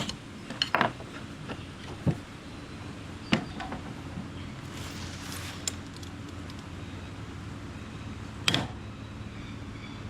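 A few separate sharp clicks and knocks of a freshly cut piece of float glass and hand tools being handled and set down on a worktable, over a steady low hum.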